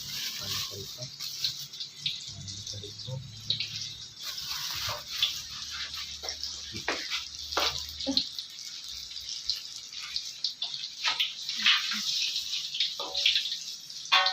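Food deep-frying in hot oil: a steady sizzle with irregular pops and crackles.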